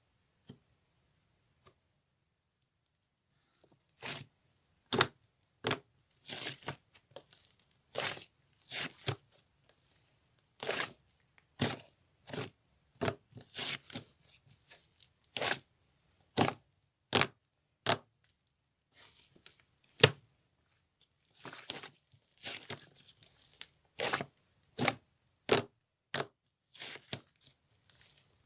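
Clay slime handled by hand, stretched, folded and pressed, giving irregular sharp pops and short tearing crackles that begin about four seconds in.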